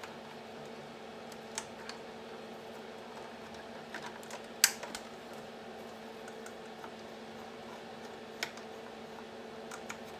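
Scattered sharp clicks of buttons being pressed on a bench power supply's front panel, the loudest about four and a half seconds in, over a steady low hum.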